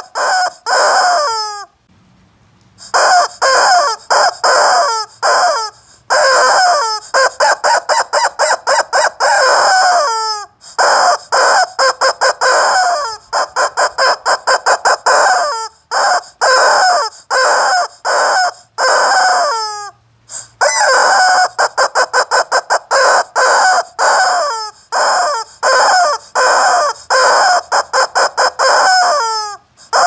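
Squeezie rubber chicken toy squawking as it is squeezed over and over: rapid runs of short, loud, squeaky honks, several a second, some ending in a falling squeal, broken by a few brief pauses.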